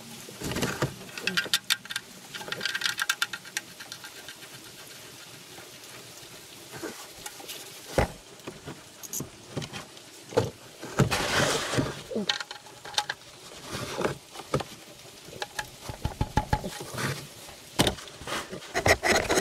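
Hand work at the oil pan of a 2010 Dodge Grand Caravan: a paper towel wiping round the drain opening, then scattered clicks, taps and scrapes as the oil drain plug is reinstalled and tightened. A quick run of small ticks comes about a second in, and the handling noise grows busier in the second half.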